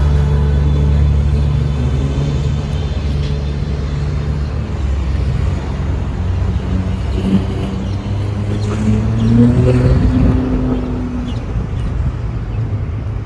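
Road traffic: motor vehicle engines running close by with a steady low hum, one engine revving up with a rising tone about two-thirds of the way through.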